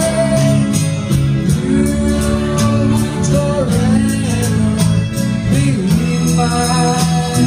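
A live band playing: a singer's voice through a microphone over electric guitar and bass guitar, with a steady beat of light high ticks.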